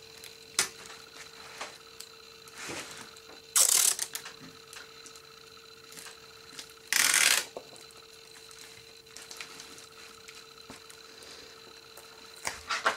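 Washi tape pulled off its roll in two short noisy pulls, each under half a second, the second about three seconds after the first, with light clicks and taps as the strip is laid on the paper canvas. A faint steady hum lies underneath.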